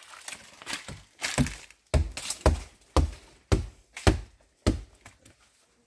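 Repeated chopping strikes into hard palm wood, about seven sharp blows roughly half a second apart.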